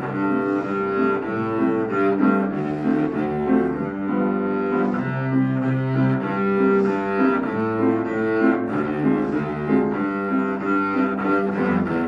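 A child's cello bowed in long held notes, the low notes changing every second or two, with grand piano accompaniment.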